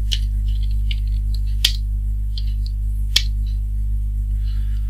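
Computer keyboard typing: scattered light key clicks, with two sharper clicks about a second and a half and about three seconds in, over a steady low electrical hum from the recording chain.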